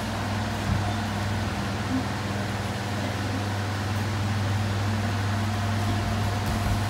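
Electric floor fans running with a steady low hum and an even rush of air, with one soft knock about a second in.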